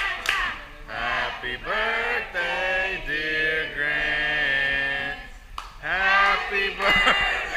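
Voices singing, with a long held note near the middle and a short break about five and a half seconds in.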